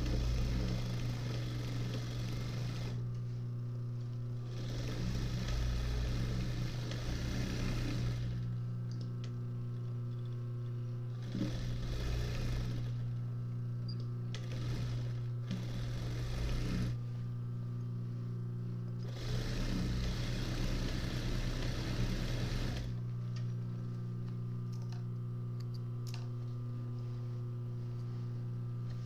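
Sewing machine darning worn jeans: it stitches in several runs one to four seconds long while the denim is worked back and forth under the presser foot. A steady low hum carries on through the pauses between runs, and only the hum remains near the end.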